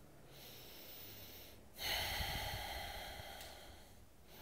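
A man breathing audibly through a deep stretch: a soft breath, then a louder, longer breath about two seconds in that slowly fades away.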